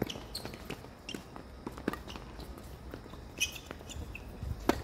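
Tennis being played: a string of irregular sharp knocks from ball bounces and racket hits, with shoe scuffs on the court. The sharpest knock comes near the end.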